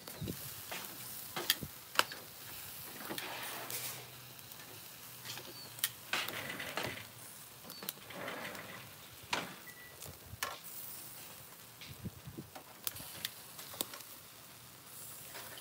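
Meat sizzling on a barbecue grill, with repeated sharp clicks of metal tongs as the pieces are turned on the grate.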